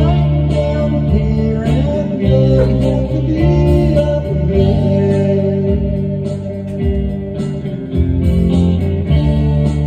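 Band music with electric guitar and a steady drum beat, with a singing voice gliding over it.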